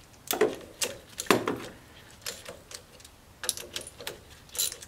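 Socket wrench and extension clicking and clanking on the rocker shaft bolts of a Nissan H20 engine: several sharp metallic clicks at uneven intervals. The bolts are being loosened a little at a time so the rocker shaft does not bend.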